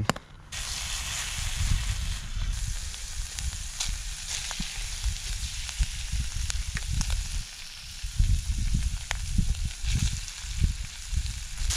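Hot oil sizzling steadily in a frying pan as floured chunks of redfin perch are laid in to fry, starting about half a second in. An uneven low rumble runs beneath it.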